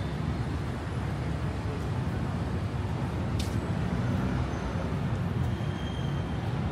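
Steady low rumble of street traffic, with a single short sharp click about three and a half seconds in.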